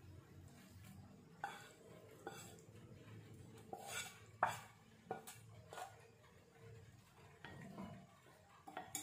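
Wooden spatula scraping and tapping against a nonstick frying pan and a ceramic bowl as cooked scrambled egg is pushed out: a string of soft scrapes and knocks, the loudest about four and a half seconds in.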